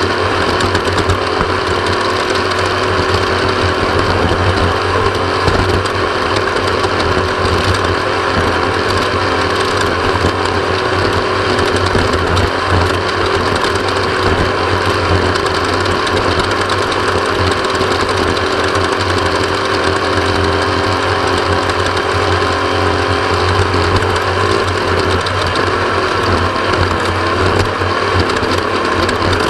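Off-road race vehicle running hard at speed: loud, steady engine and drivetrain noise with a shaking, rattling texture, its pitch wavering only slightly.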